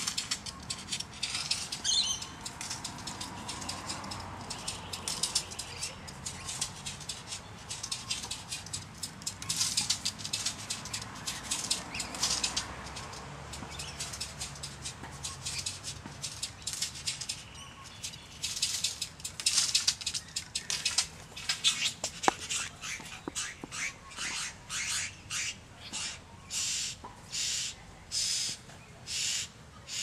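Great bowerbird giving harsh, hissing churrs, a long run of short rasps that settles into about one a second near the end.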